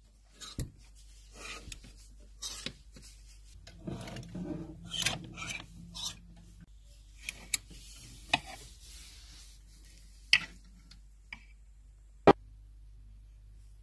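Clothes on hangers being pushed along a wardrobe rail: fabric rustling, and hangers scraping and clicking. There are scattered short rustles, with a few sharp clicks toward the end, the loudest near the end.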